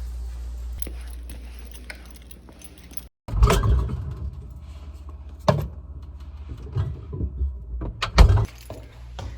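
Keys jangling with a series of sharp clicks and knocks, the loudest about three seconds in and again near the end, over a steady low hum.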